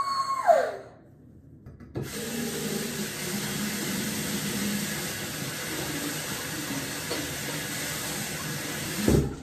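A high drawn-out wail that drops in pitch and fades within the first second. Then, about two seconds in, a bathroom sink tap starts running steadily while hands are washed under it, and stops near the end with a short low thump.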